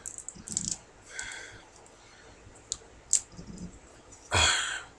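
Shrink-wrapped plastic DVD case being handled and picked at with a finger: scattered sharp clicks and short plastic crinkles, with one louder rustle lasting about half a second near the end.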